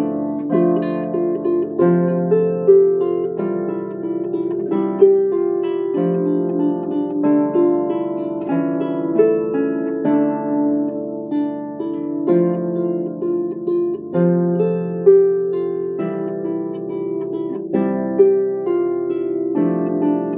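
Solo folk harp played by hand: plucked strings ringing on, a melody line over lower bass notes.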